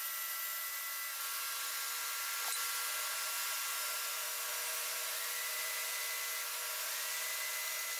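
Table saw running, its blade cutting a wooden spindle that spins in a homemade copy-lathe jig. A steady machine whine, with a higher tone that shifts up and down a few times.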